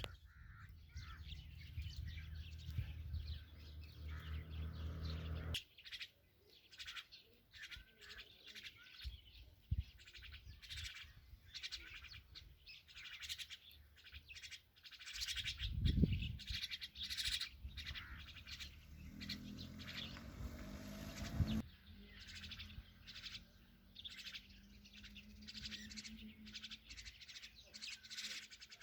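Mynas at the nest giving many rapid, short high chirps, the kind of calling heard as a parent feeds its chicks. A low steady hum sits under the chirps at the start and again later, and there is a dull thump about sixteen seconds in.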